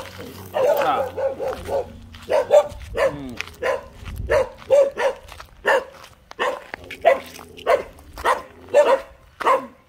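A dog barking over and over, about a dozen short barks spaced roughly half a second to a second apart.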